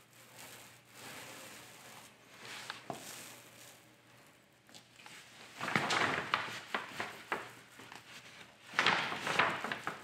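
Masking paper rustling and crinkling with small clicks, in two bouts: one starting about six seconds in and another near the end.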